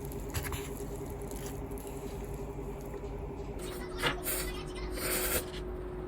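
Eating noises from a cup of ramen: a few short, wet slurps and mouth sounds, with a faint steady hum behind.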